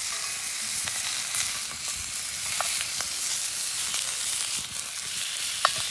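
Bratwursts sizzling steadily as they brown in a hot cast-iron skillet, with a couple of light clicks.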